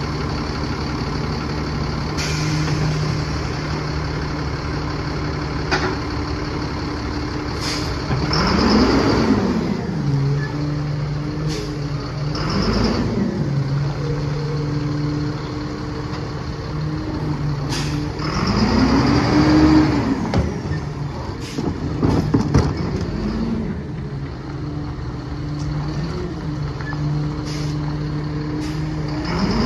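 Freightliner M2 rear-loader garbage truck's diesel engine idling, revving up and back down a few times as the New Way Viper body's hydraulic packer cycles, with a hiss at each cycle. Bins and trash bang and clank against the hopper throughout.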